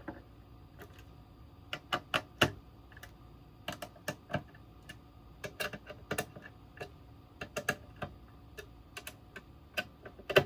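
Irregular clicks and taps of hands working on the oscilloscope's plastic case and parts, a few of them louder, with the sharpest right at the end.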